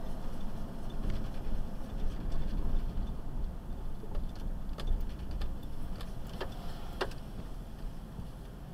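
Low, steady rumble of a car driving on city streets, heard from inside the vehicle, with a few irregular clicks and light knocks in the middle of the stretch.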